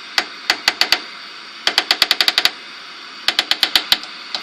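Rotary channel selector knob on a 1985 RCA television clicking through its detents in three quick runs of sharp clicks, over a steady hiss.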